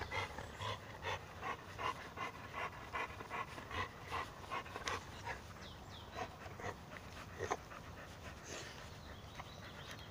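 A pit bull-type puppy panting rapidly, about two to three breaths a second, while tugging on a rope toy. Later comes a few sharp knocks, one of them the loudest sound.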